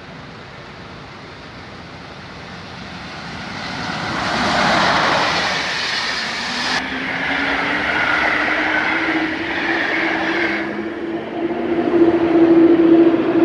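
Intercity passenger train behind an EP07 electric locomotive passing at speed, its wheel and rail noise building about four seconds in and dying away after about ten seconds. A hum from a second EP07 electric locomotive rises in pitch as it approaches on the near track and grows loudest near the end.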